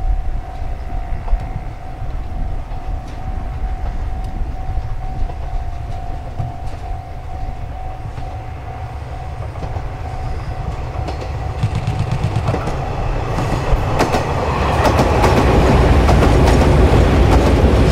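A train approaching and passing, its rumble growing louder from about two-thirds of the way through, with wheels clattering over rail joints near the end. A steady high tone sounds through the first part and stops as the train draws near.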